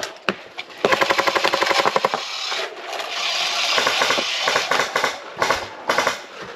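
Airsoft guns firing on full auto. A fast, even burst of shots starts about a second in and lasts just over a second. A stretch of hiss follows, then more ragged rapid shots near the end.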